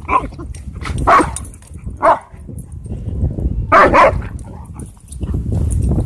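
Dogs barking in rough play: a few short, sharp barks about a second apart, then a louder double bark about four seconds in.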